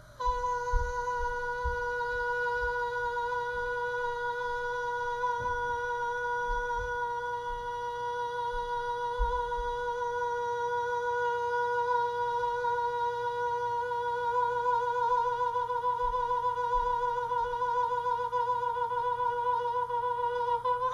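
One high sung note, a puppet character's voice, held steady in pitch on a single breath for about twenty seconds, wavering slightly near the end before it stops.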